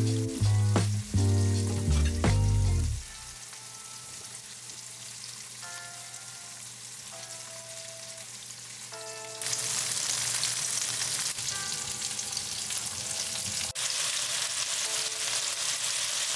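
Chicken thighs sizzling as they brown in olive oil in a ceramic nonstick skillet. The sizzle jumps much louder about nine and a half seconds in. Background music with a heavy beat plays over the first three seconds, then continues more softly.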